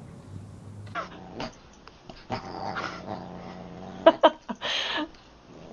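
A dog growling in repeated bursts, with a few short yips, while sparring with a Siamese cat; the loudest burst comes about four seconds in.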